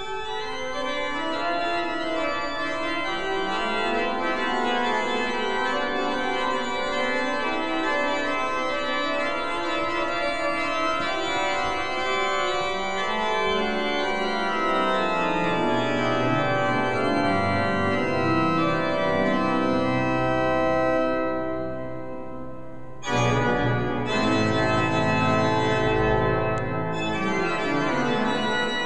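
St. Bavo's Christian Müller pipe organ playing held chords that move steadily, with deep bass coming in partway through. Near the end the sound thins and fades, then a fuller, louder chord with strong bass enters suddenly.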